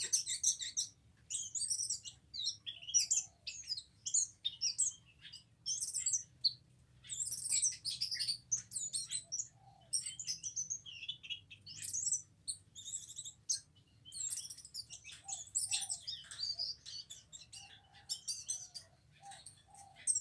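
Anis macan thrush singing: a long run of rapid, varied high chirps and twitters in short bursts separated by brief pauses.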